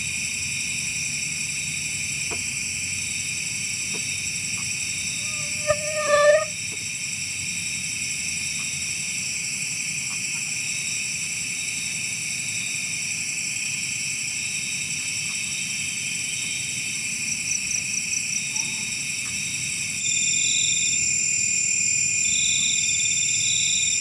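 Night chorus of insects, a steady high-pitched shrill made of several layered tones, with a short pitched animal call about six seconds in and a brief rapid trill near the end.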